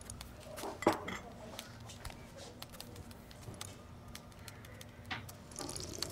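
A ceramic teacup clinks once, sharply, about a second in, among small ticks and quiet room tone; near the end comes a short sip from the cup.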